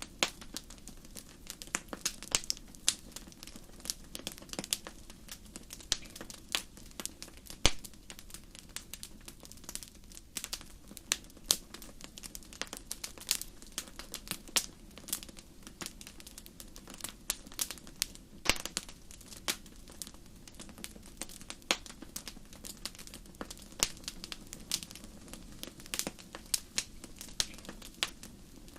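Campfire crackling: burning wood popping in many irregular sharp snaps over a steady low hush of the flames.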